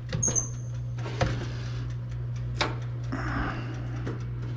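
A few sharp clicks and knocks from things being handled, over a steady low hum.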